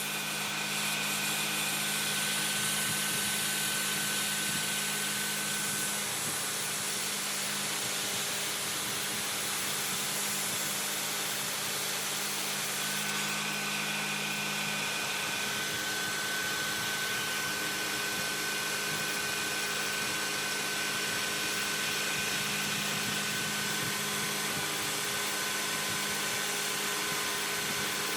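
CNC knee mill machining, its spindle running steadily under a continuous hiss, with a steady whine that drops out for several seconds mid-way and returns.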